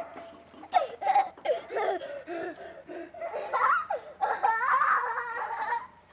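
Young children laughing: a run of short bursts, then a longer, louder stretch about halfway through.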